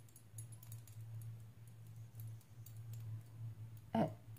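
Faint, scattered light clicks and ticks over a steady low hum.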